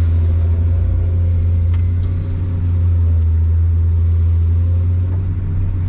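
Excavator's diesel engine running at a steady low drone.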